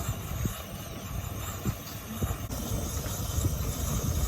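Wind buffeting the microphone in an uneven low rumble, over a steady hiss from a gas camp stove burner.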